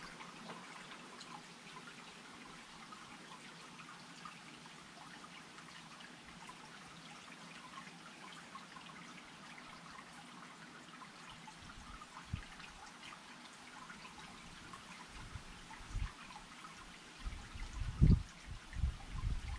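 Faint, steady trickling and dripping of water, with fine patter throughout. A few low rumbles come in near the end.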